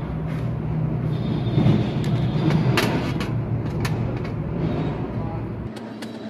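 Steady low rumble of an engine running nearby, which cuts off near the end. A few light metallic clicks of the valve parts and tools being handled on a metal tray sound over it.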